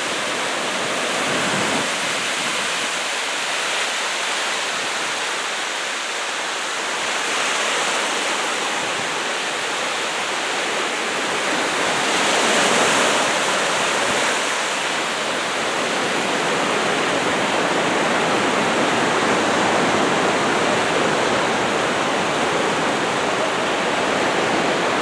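Small, knee-high surf breaking and washing up on the beach: a continuous rush of white water that swells and ebbs, loudest about twelve to fourteen seconds in.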